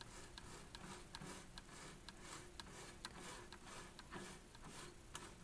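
Magnavox Stereo 750 receiver's flywheel tuning mechanism ticking faintly and evenly, about four times a second, as the tuning is turned and the dial string runs over its pulleys.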